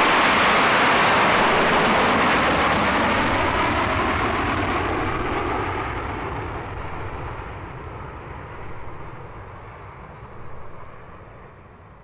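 Recorded jet aircraft sound effect: loud engine noise at the start that fades steadily as the plane moves away, the high hiss dying out first and a low rumble lingering.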